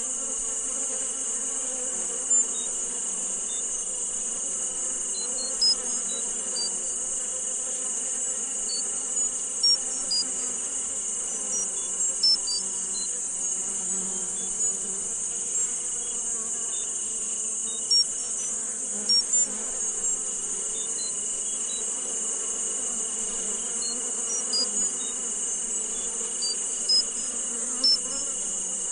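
Steady high-pitched insect-like chorus with a constant high tone beneath it, and short high chirps scattered irregularly: a tinnitus sound-therapy masking soundscape.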